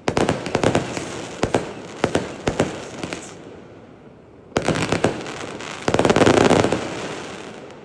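Fireworks going off in two volleys of rapid sharp bangs and crackle: the first dies away after about three seconds, a second burst starts about four and a half seconds in and is loudest around six seconds before fading.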